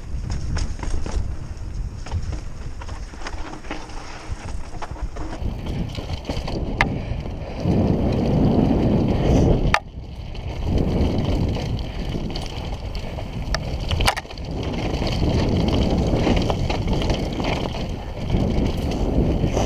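Downhill mountain bike running fast over a dirt and rock trail, heard from a helmet camera: wind buffeting the microphone and tyres rumbling over the ground, rising and easing with the terrain, with a few sharp knocks from the bike over bumps.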